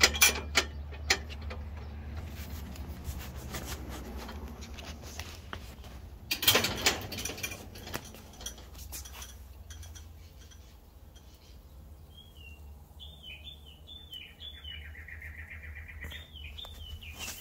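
Small bird chirping in short, repeated, downward-sliding notes, with a rapid trill in between, starting about twelve seconds in, over a steady low hum. Earlier there are a few clicks near the start and a brief burst of rustling noise, the loudest sound, about six seconds in.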